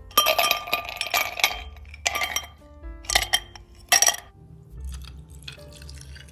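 Ice cubes clinking into a drinking glass: a clattering run of ringing clinks at first, then three single clinks about a second apart, and tea starts pouring over the ice near the end. Soft background music plays underneath.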